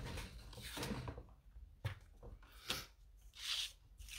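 A plastic paper trimmer is slid across a craft tabletop and set down, and cardstock is laid on it: a few light knocks among soft sliding and paper-handling noise.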